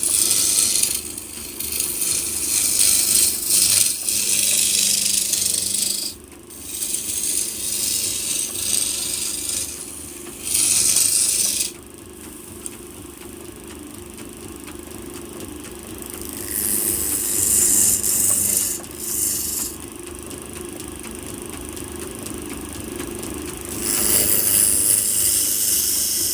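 Wood being worked with a tool in repeated strokes of scraping hiss, each lasting a few seconds, over a steady low hum.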